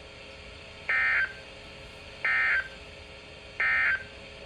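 Three short, buzzy digital data bursts about a second apart: the SAME end-of-message (EOM) tones that close an Emergency Alert System severe thunderstorm warning.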